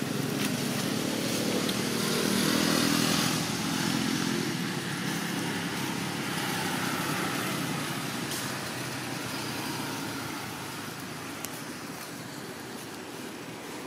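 Motorcycle engine running, its steady hum swelling for the first few seconds and then slowly fading away.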